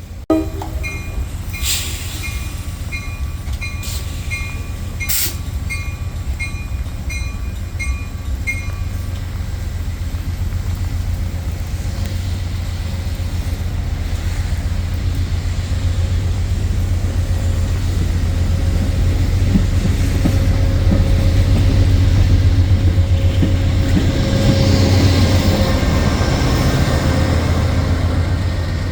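A train running past with a steady low rumble that builds louder in the second half, while a bell rings at an even beat of about two strokes a second for the first several seconds, then stops.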